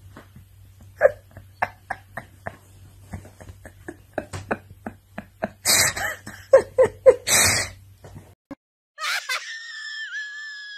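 Soft snickering laughter with scattered clicks and two sharp breathy bursts near the middle. After a short break, a long high-pitched squeaky cry holds almost level to the end.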